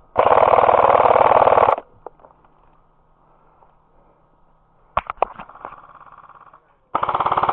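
Airsoft electric gun firing two full-auto bursts close by, the first about a second and a half long, the second starting near the end, with a few sharp clicks between them.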